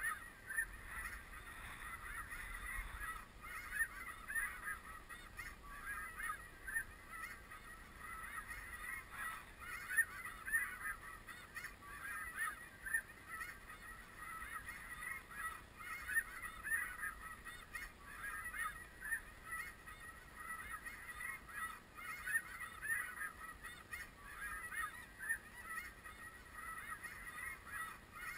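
A chorus of many snow geese calling at once: an unbroken chatter of short, overlapping honks.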